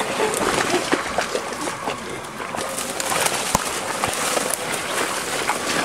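Footsteps crashing through dry fallen leaves and brush, with dense crackling and rustling of twigs and branches.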